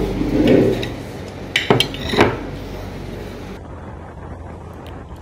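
Plates and cutlery clinking at a dinner table, with two sharp clinks about two seconds in. A little later the clatter gives way to a dull, low steady noise.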